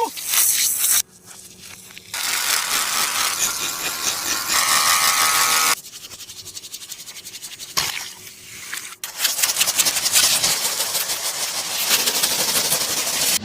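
Paper and tape crinkling and scraping under the hands in long, loud stretches, with a quieter, finely pulsing stretch in the middle.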